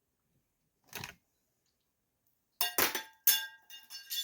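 Metal chainsaw parts clinking and clattering together as they are handled and set down, several sharp clinks with a short metallic ring in the last part, after a brief rustle about a second in.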